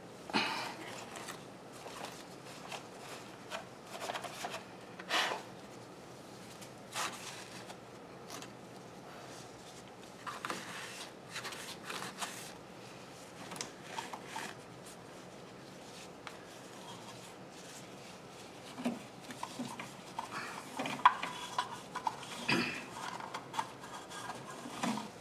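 Irregular rubbing, scraping and light knocking of hand-cleaning dirt from the back and underside of a refrigerator, in short strokes with pauses between them, busier near the end.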